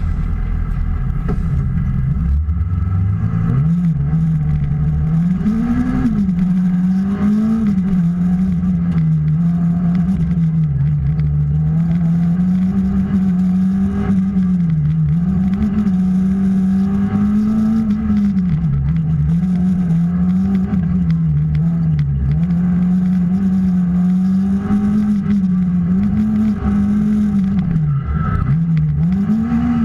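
Small race-prepared hatchback's engine heard from inside the stripped, roll-caged cabin. It climbs in pitch over the first few seconds as the car gets going, then rises and falls again and again as the driver accelerates and lifts off through the slalom.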